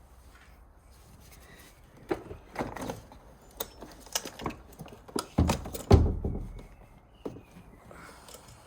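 Scattered knocks, clicks and clunks of a car battery and its cables being handled in the engine bay. The heaviest thuds come about five to six seconds in.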